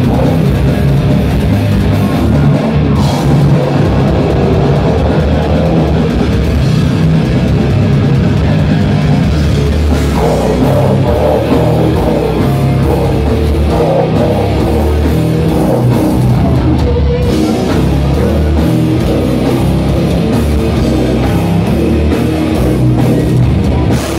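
A metal band playing live: heavily distorted electric guitar and bass over a drum kit, loud and continuous.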